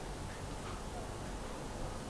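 Quiet room tone: a faint, steady low hum with light hiss and no distinct events.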